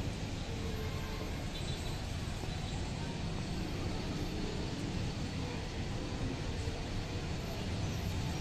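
Steady low rumbling background noise with no clear single source.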